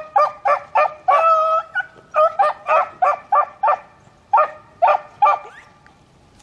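Beagles baying while trailing a rabbit's scent: a quick string of short, pitched barks with one longer drawn-out bawl about a second in. The calling stops after about five seconds.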